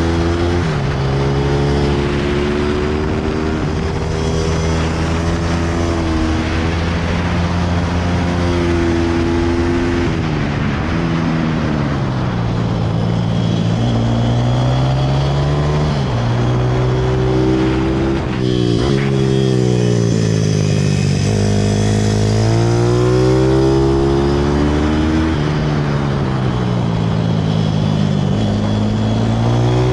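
Speed Force International pit bike's single-cylinder engine heard from on board, revving up and down through the laps: the pitch climbs, then falls off several times, sometimes suddenly. There is a rush of wind noise underneath.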